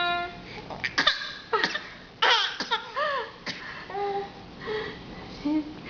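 A small child's pretend coughing: short, dry cough bursts mixed with high-pitched giggling and babbling.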